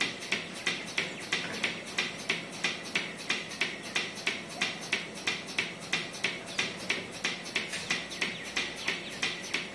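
Portable bucket milking machine running with its teat cups on a cow's udder, its pulsator beating out a steady rhythm of short hissing clicks, about three a second.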